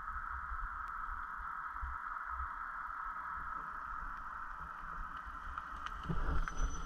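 Dirt bike engine idling, heard muffled as a low uneven rumble with a steady hiss over it. About six seconds in, the low rumble grows as a second vehicle pulls up close.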